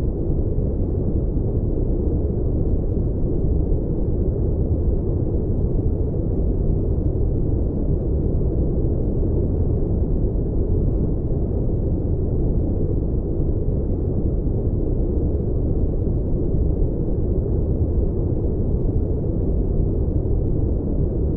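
Steady, deep rumbling brown noise of an airliner cabin ambience, even throughout with no separate sounds standing out.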